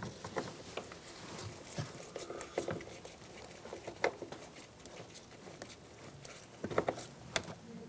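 Small scattered clicks, taps and light scraping as a screwdriver drives the screw that holds a car's exterior door handle in place, with a cluster of sharper clicks near the end.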